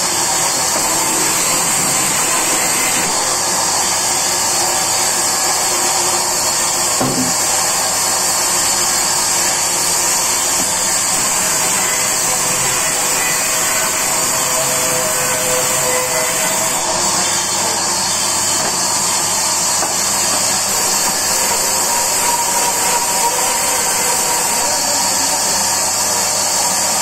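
Large sawmill band saw running steadily while a log is pushed through the blade, a continuous machine noise with a strong high hiss.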